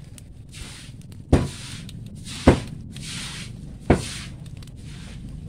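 Three sharp knocks, a little over a second apart, over a soft whooshing that swells and fades again and again.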